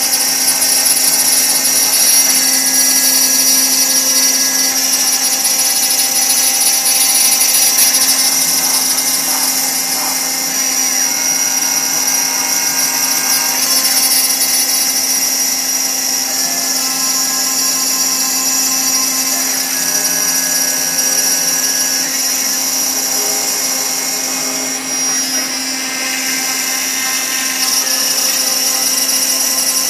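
6040 CNC router spindle at 15,000 RPM driving a single-flute carbide end mill through bronze cymbal sheet, a steady whine over the hiss of the cut. It runs at a 25 inches-a-minute feed and 15 thou depth of cut, a recipe the owner judged not too aggressive.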